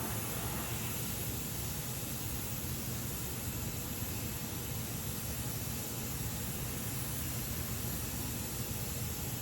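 Gas welding torch flame hissing steadily while flame welding aluminum, with a low rumble under the hiss.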